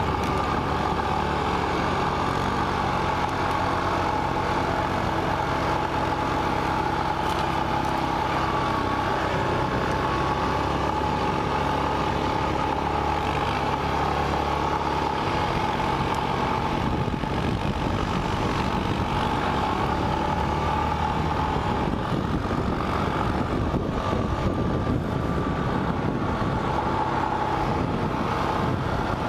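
Single-cylinder 450 ATV engine running steadily at cruising speed, heard from the handlebars, with a hiss of wind and tyre noise.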